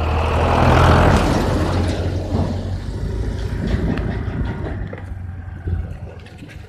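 Motorcycle engines running on the move, with a farm tractor's diesel engine passing close about a second in, where the sound is loudest. It then eases off.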